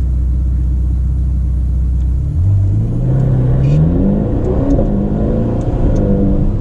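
Ferrari Portofino's 3.9-litre twin-turbo V8, heard from inside the cabin, idling with a steady low drone. A little over two seconds in it pulls away and accelerates, its pitch rising for a couple of seconds before levelling off.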